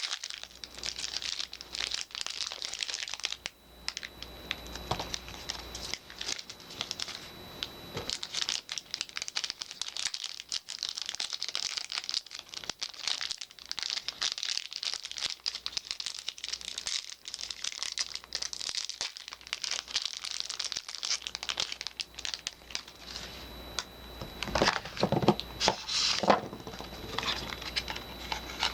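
Soap packaging being crinkled and torn open by hand: continuous dense crinkling and rustling, with a few louder rustles a few seconds before the end.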